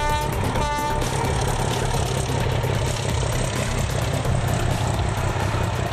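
ČSD class 751 'Bardotka' six-cylinder diesel locomotive running past with its train, a steady low engine drone, with two short horn toots in the first second.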